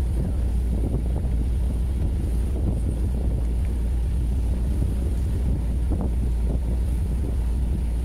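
A boat's engine running steadily, with wind buffeting the microphone.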